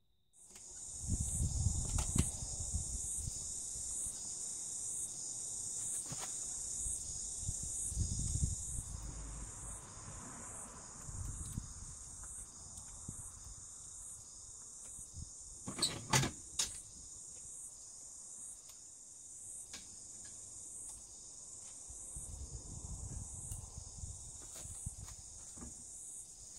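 Insects chirping in a steady high-pitched pulsing drone, with low rumbling noise now and then and a few sharp clicks about sixteen seconds in.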